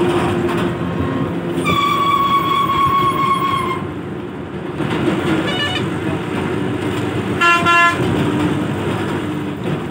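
Steady engine and tyre rumble of a moving road vehicle heard from on board, with vehicle horns: one horn held for about two seconds, then a brief honk, then a louder short honk.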